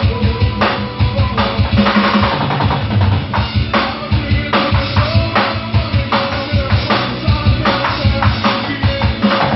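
Drum kit played in a steady groove, with frequent kick drum strokes and snare hits, over the recorded song's backing music.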